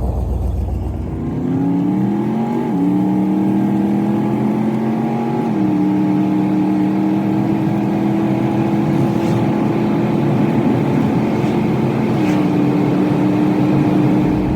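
GMC van's engine accelerating from inside the cab: its hum rises in pitch, drops sharply at a gear change a few seconds in, then runs steady, stepping down again about halfway through and near the end.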